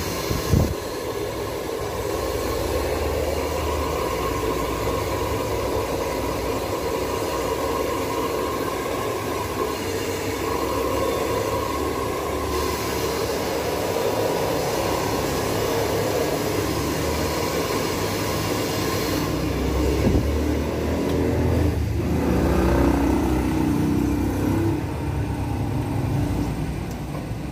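Handheld hair dryer running steadily with a whine over a rush of air, blowing a puppy's coat dry; it grows a little louder about twenty seconds in.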